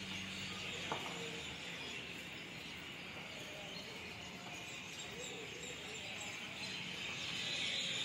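Many birds chirping at once in a dense, continuous evening chorus, with one short click about a second in.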